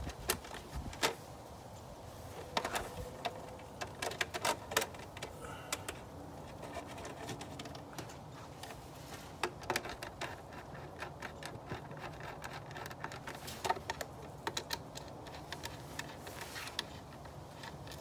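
Scattered clicks and light knocks of hard plastic engine-bay trim on a BMW E46 being handled: the engine cover is pressed into place and a screwdriver works the fasteners of the cowl panel.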